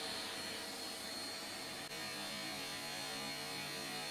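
Steady low hum and hiss with a thin high tone, with a brief drop near the middle.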